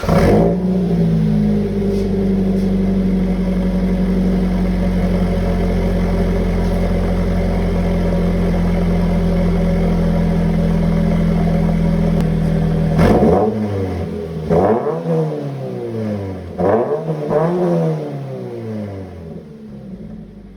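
Toyota GT86's 2.0-litre flat-four running through a Borla exhaust on stock headers. It idles steadily just after starting, then after about thirteen seconds is revved four times, each rev rising and falling in pitch, before dropping back to a quieter idle.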